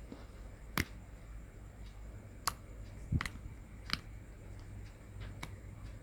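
Slime being pressed and pulled, giving about five sharp, irregularly spaced click-like pops.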